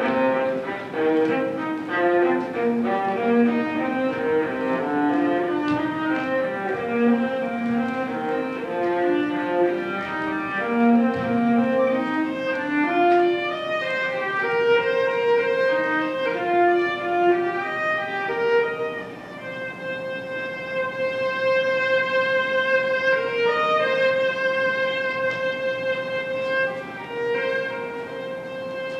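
Live chamber music on bowed strings, a violin among them: quick, rhythmic runs of short repeated notes that change about two-thirds of the way through to long sustained notes.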